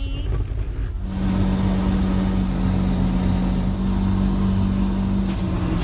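Motor vehicle driving, its engine and road noise running with a steady hum that comes in about a second in.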